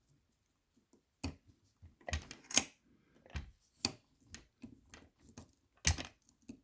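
Lever-lock picking tools being worked one-handed in the keyway of a Chubb Cruiser lever lock to pull them back out: irregular sharp metallic clicks and rattles, the loudest a little over two and a half seconds in and near the end.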